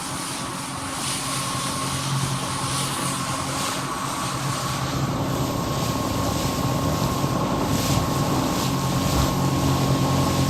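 A boat motor runs steadily under way, with a thin steady whine and wind and water noise on the microphone. It grows slightly louder toward the end.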